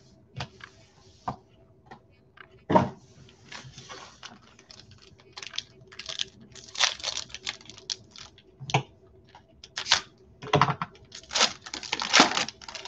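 Foil trading-card pack wrappers crinkling and tearing open, and cards being shuffled and slid in gloved hands, in irregular rustles and clicks.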